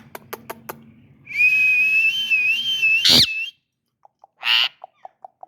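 A few sharp clicks, then a long, high, slightly wavering whistle of about two seconds that ends in a quick upward flick. A short chirp and a string of quick soft pips follow.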